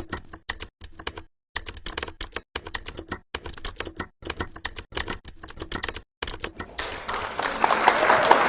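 An object tapped and rubbed right against a microphone: quick, irregular clicks in short runs, turning into a denser scratching about seven seconds in.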